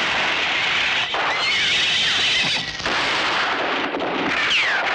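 Film gunfight sound effects: several gunshots in quick succession, each kicking in suddenly and loudly, with falling ricochet whines between them.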